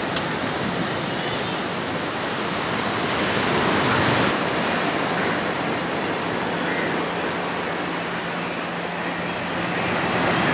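Ocean surf breaking on a sandy beach: a steady wash of waves with no distinct single breakers, swelling slightly about four seconds in.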